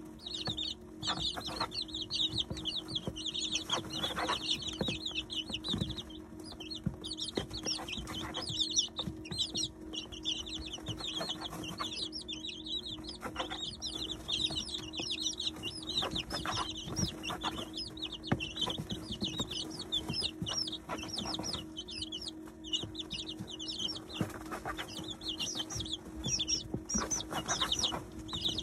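A brood of 19-day-old chicks peeping without pause, many quick high-pitched peeps overlapping, with short taps of pecking at the feed in a plastic feeder. A steady low hum runs underneath.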